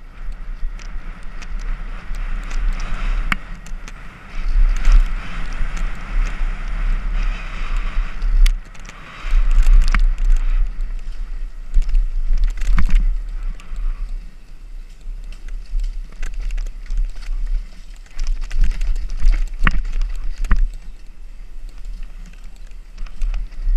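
Mountain bike ridden fast down a dirt trail, heard from a helmet-mounted camera: heavy wind buffeting on the microphone, tyre noise on the dirt, and repeated sharp knocks and rattles as the bike hits bumps and roots.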